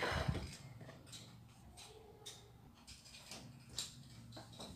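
Dough being handled: a dull knock right at the start, then soft scattered taps and rustles as a ball of pastry dough is taken from a plastic bowl and pressed onto a granite worktop.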